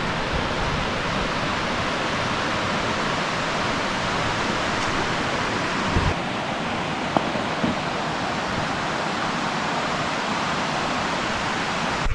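Steady rushing of water, like a waterfall or cascade in a gorge, an even hiss with no breaks.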